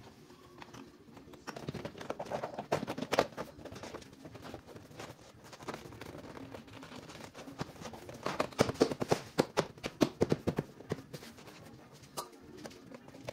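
BMW F10/F11 rear door trim panel being pressed and struck by hand onto the door, its plastic retaining clips knocking and snapping into place: rapid flurries of sharp knocks, a short one about two seconds in and a longer one from about eight to eleven seconds in.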